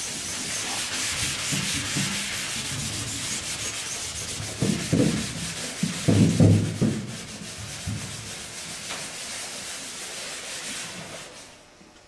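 Scotch-Brite pad rubbed by hand back and forth over the primed aluminium skin of an aircraft wing: a steady scratchy scuffing that dulls the primer to give the top coat a tooth. A few louder, deeper strokes come about five and six to seven seconds in, and the rubbing dies away near the end.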